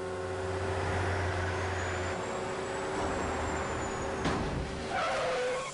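Several sport motorcycles running at speed, a steady engine drone. About four seconds in there is a sharp knock, followed by a short wavering squeal.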